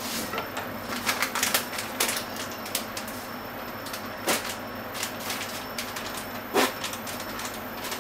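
A metal measuring spoon stirring in a measuring cup of liquid and clinking against its side: a quick run of clinks about a second in, then a few single clicks, over a steady background hum.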